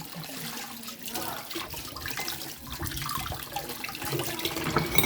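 Water running steadily from a tap into a sink while strawberries are rinsed under it.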